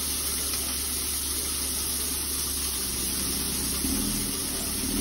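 Gravel pouring in a steady rushing hiss from the open tailgate of a dump truck as it spreads stone over a driveway. The truck's engine hums underneath, growing louder near the end.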